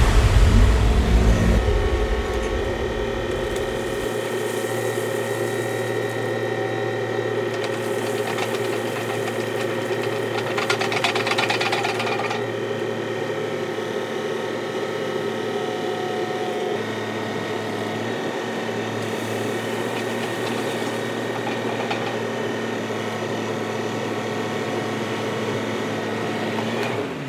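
Case backhoe running steadily, its engine a constant hum with steady whining tones. About eleven seconds in there is a brief rattling rush, stone pouring from the bucket into the planter.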